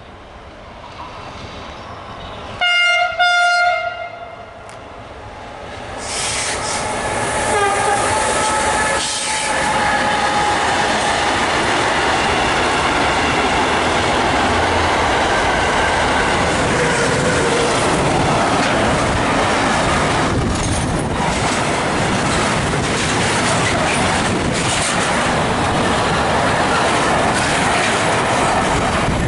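Electric freight locomotive sounds a short, loud horn blast about three seconds in. About six seconds in, a long intermodal freight train of container and tank wagons starts passing close by, its wheels rumbling and clattering steadily, with a wavering squeal in its first few seconds.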